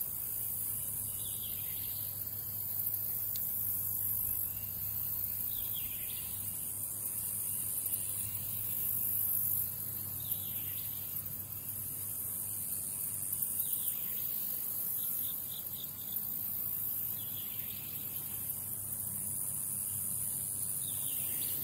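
A chorus of insects shrilling steadily at a high pitch, swelling and fading every couple of seconds, with a short call repeated every four seconds or so.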